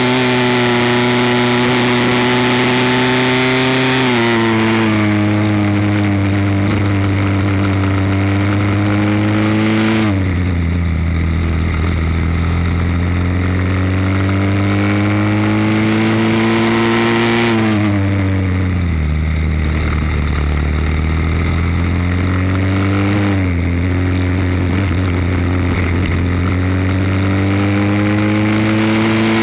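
Briggs & Stratton World Formula four-stroke single-cylinder kart engine at racing speed, heard onboard. Its pitch climbs steadily along the straights and falls sharply three times as the kart slows for corners, with a smaller dip just before that.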